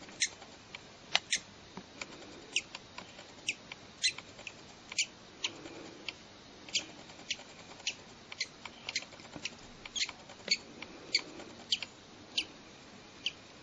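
Newly hatched bird chick, still emerging from its eggshell, giving short, high squeaky peeps at an irregular pace of about two a second.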